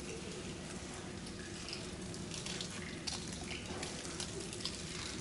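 Faint steady room noise with scattered small clicks and rustles: quiet handling and movement during communion, with no one speaking or singing.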